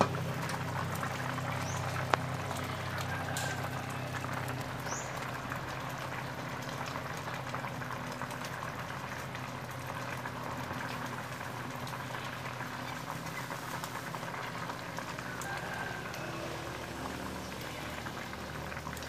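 Sindol (banana slices in coconut milk) bubbling at a steady boil in a wok over a wood fire, a dense crackling bubbling. Two sharp clinks from the metal wok lid, at the start and about two seconds in.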